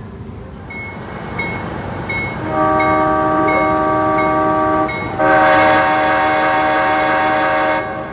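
Sound-equipped model train locomotive on a layout, ringing its bell in regular strokes about every 0.7 s and blowing a multi-note air horn in two long blasts with a short break between them.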